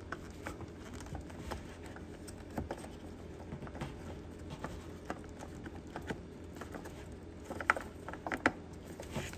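Light clicks, taps and rustling from hands handling a plastic-wrapped headlight assembly and working its wiring connectors, with a few sharper clicks near the end.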